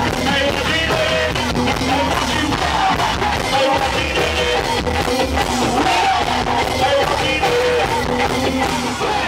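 Go-go band music playing loudly and steadily, with a voice singing or chanting over the beat.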